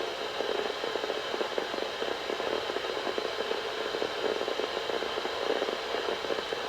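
Static hiss and crackle from a weather radio receiver on a weak NOAA Weather Radio signal, the broadcast voice lost in the noise.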